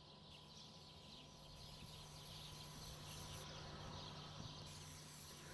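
Near silence: faint background ambience with a steady low hum and a faint high tone.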